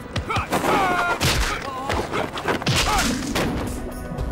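Martial-arts film fight soundtrack: a rapid run of hit and thud effects mixed with short shouted cries.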